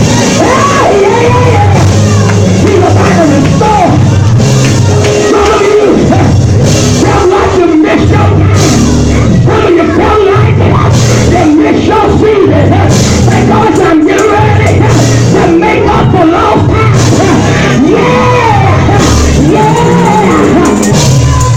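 Loud live gospel-style band music with bass and drums, a voice singing over it.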